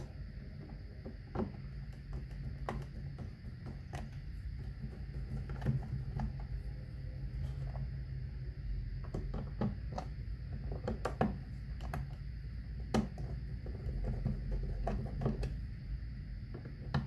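Flathead screwdriver turning the slotted screws of a dryer outlet's cover plate by hand: scattered, irregular clicks and scrapes of the blade in the screw slots, over a steady low hum.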